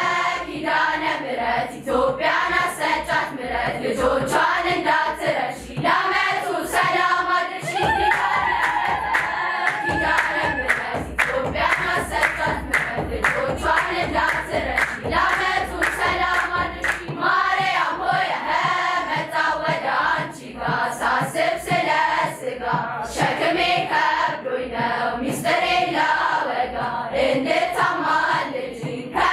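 Choir of young girls singing an Ethiopian Orthodox hymn (mezmur) together, clapping their hands in a steady beat.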